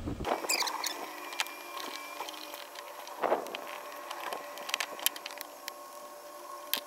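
Screwdriver scraping and picking crusted dirt off a small lawnmower carburetor: scattered short scrapes and clicks of steel on the metal body. A faint steady hum runs underneath.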